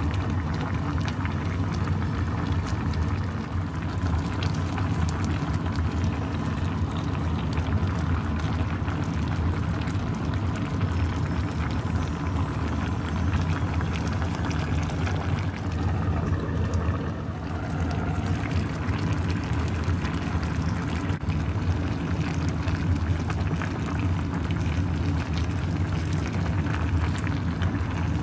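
Chicken and vegetable curry soup bubbling steadily as it simmers in the pan, a dense, even crackle over a steady low hum.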